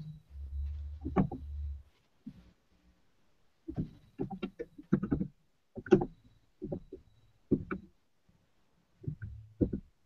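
Computer keyboard keys tapped in short, irregular clusters, heard through a video-call microphone, after a brief low rumble at the start.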